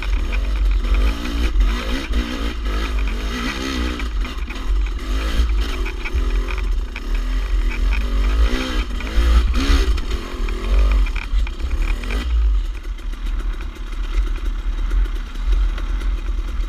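Dirt bike engine revving up and down over and over as the bike picks its way over rock, with wind rumbling on the microphone. About 12 seconds in it settles into a steadier, lower-pitched run.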